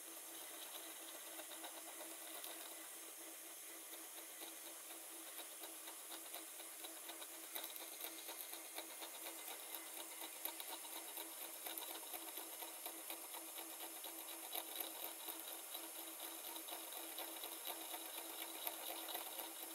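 CNC milling machine spindle running steadily with an end mill cutting laminated chipboard, a constant tone under a hiss; a crackle of rapid ticks from the cutting sets in about seven or eight seconds in.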